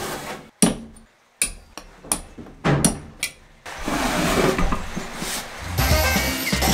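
A heavy cast-iron bench vise set down and shifted on a wooden workbench top, a series of separate clunks and knocks. About three and a half seconds in, a steady whirring noise takes over, a cordless drill boring into the wooden tabletop, and background music comes in near the end.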